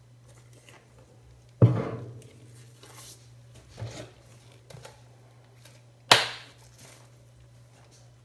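Two sharp knocks of bottles being set down on the ice cream station, about a second and a half in and about six seconds in, each ringing briefly, with a few softer taps between. A steady low hum runs underneath.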